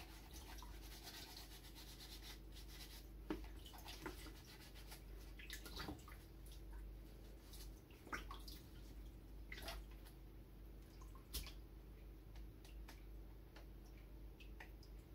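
Faint scrubbing of a small plastic aquarium filter part with a sponge over a bucket of water, cleaning off the dirt, with scattered small clicks and scrapes.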